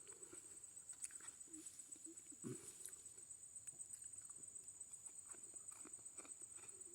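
Near silence: a faint, steady, high-pitched insect trill with a few soft scattered clicks.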